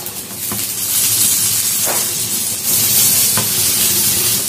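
Oil sizzling under a stuffed egg-and-vegetable paratha frying on a tawa as a steel spatula presses it down. The hiss is steady and grows louder about a second in, with a few faint spatula clicks.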